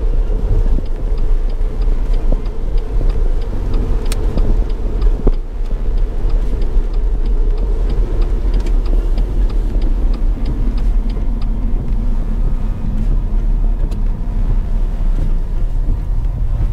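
Car cabin noise while driving on a wet road: a steady low engine and road rumble with tyre hiss. An even, quick ticking, typical of the turn indicator relay, runs through the first two-thirds and then stops. There is one sharp click about four seconds in.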